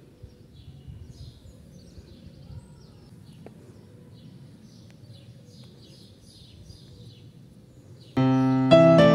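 Quiet outdoor background with faint bird chirps now and then, then piano music starts about eight seconds in and is the loudest sound.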